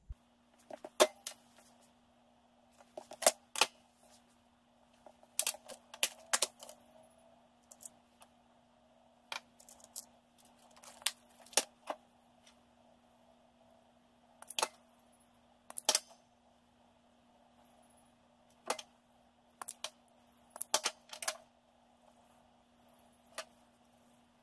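Sharp clicks and snaps of a wire stripper and a crimping tool working on wire and spade terminals, coming irregularly in pairs and small clusters over a faint steady hum.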